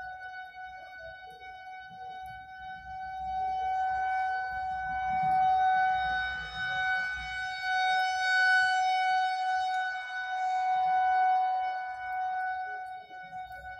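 Federal Signal 2001-130 rotating outdoor warning siren sounding a steady single tone. It grows louder a few seconds in and fades again near the end as the rotating head sweeps around. It is sounding as an alert for a severe thunderstorm warning with destructive winds.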